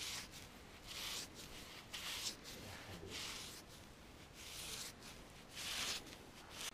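Paintbrush stroking wet orange paint onto a wooden mast: a run of soft brushing swishes, about one a second.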